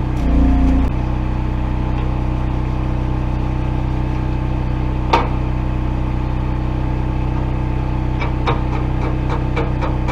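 Small gasoline engine of a Hobart Champion 145 engine-driven welder running steadily, with a brief louder swell near the start and a sharp click about halfway. From about eight seconds in come light metallic taps, a few a second.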